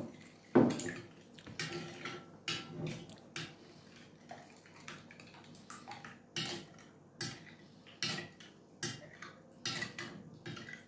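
A metal spoon stirring a thin liquid mixture in a cut-glass bowl, clinking against the glass about a dozen times, roughly once a second.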